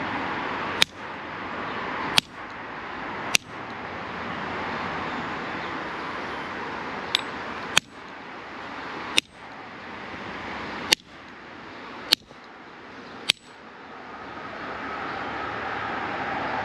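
Channel-lock pliers striking soldered copper pipe: sharp metallic clanks, eight hard blows with one lighter tap. Three come about a second apart, then after a pause five more, with a short ring after each.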